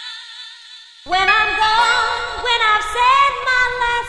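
Music with a sung vocal line: a held note with vibrato fades away, then about a second in the song comes in loudly with a deep bass under the singing.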